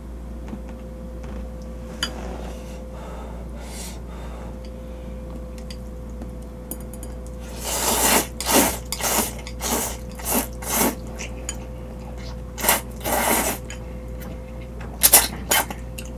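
A man slurping seafood jjamppong noodles from a bowl: a run of short, loud slurps starting about halfway through and two more near the end. Before them there are only faint clinks of chopsticks against the bowl.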